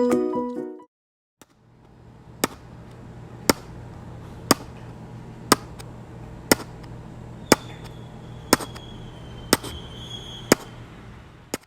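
A short stretch of music ends, then sharp ticks sound evenly about once a second, nine times, over a steady low hum.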